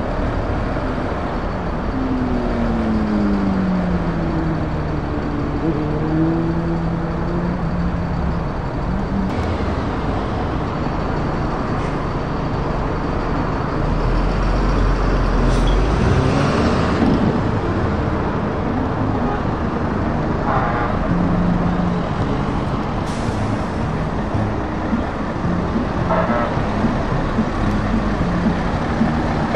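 Diesel engines of heavy trucks running as they roll past slowly one after another, with steady road noise. A couple of seconds in, one engine's pitch drops and levels off as it eases off. A deeper rumble swells about halfway through.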